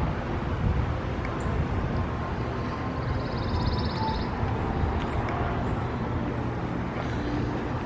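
Steady outdoor background noise with a low rumble of wind on the microphone. A brief, high, rapid trill sounds about three seconds in.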